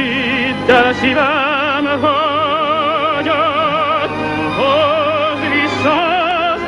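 Operetta-style orchestral music: a melody with wide vibrato over held accompanying notes, sliding up into new notes about a second in and again near the end.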